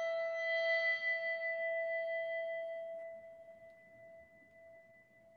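A bell rings out from a strike just before, a clear steady tone with higher overtones that die away first, the main tone fading out over about five seconds. It is tolled in remembrance after the name of a deceased church member is read.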